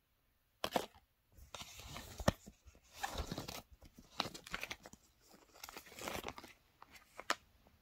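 Plastic sample packaging crinkling and rustling in a string of short bursts as a hand rummages through a zippered cosmetic bag and pulls out a foil sheet-mask packet.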